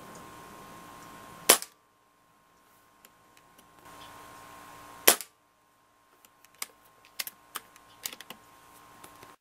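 Benjamin Marauder .177 pre-charged pneumatic air rifle firing twice, about three and a half seconds apart, each shot a sharp crack. Near the end comes a quick run of smaller clicks and knocks.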